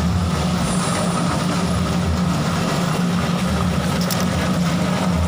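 Ginger washing and peeling machine running steadily: a constant low motor hum under an even mechanical rush.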